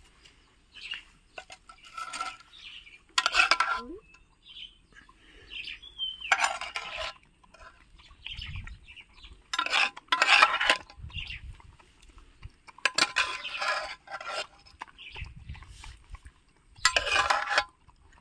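A metal spoon scraping and clinking against an aluminium cooking pot as rice is scooped out, in about five bursts a few seconds apart.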